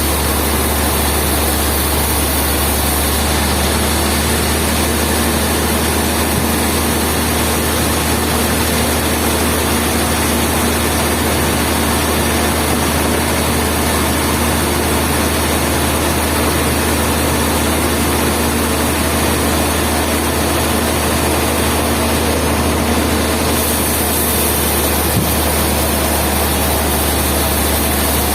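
Sawmill machinery running with a loud, steady mechanical drone and a deep hum underneath, with no distinct cuts or impacts.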